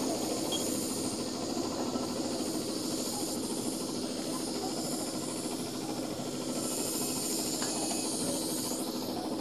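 Steady hissing outdoor background noise, even throughout with no distinct events.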